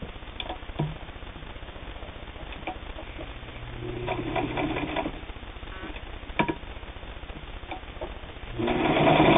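All-steel, gear-driven Singer 66 sewing machine stitching a fine stitch in sheeting. There are a few clicks and knocks, a short run of stitching about four seconds in, and then the machine starts running steadily and much louder near the end.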